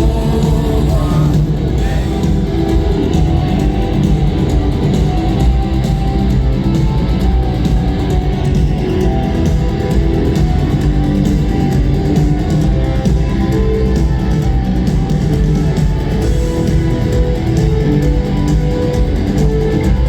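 A rock band playing live, with guitar over heavy bass and drums.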